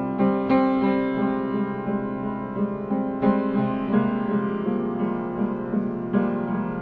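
Piano or keyboard music: slow sustained chords, with new notes struck every second or so.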